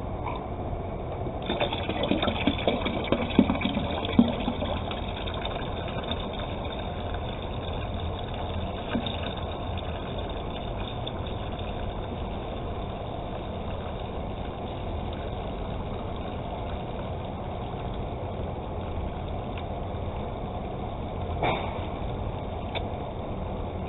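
Water pouring steadily into a container of homemade liquid laundry soap, as five more litres are added. A few knocks and clatter of handling come in the first few seconds.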